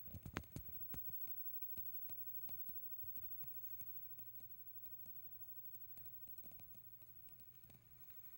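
Faint clicks and light taps: a quick cluster in the first second, then scattered single ticks.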